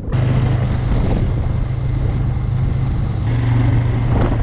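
Off-road vehicle's engine running steadily while under way; its hum gets a little louder about three seconds in.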